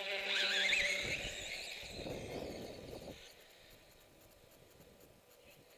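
Motor of an RC motocross bike whining with a wavering, rising pitch in the first second, then a rough scraping rumble for about a second, then dying away to a faint background.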